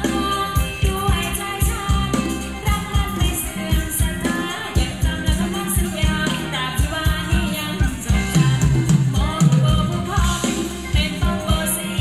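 Thai ramwong dance music from a live band: a singer over a steady drum beat with shaken percussion.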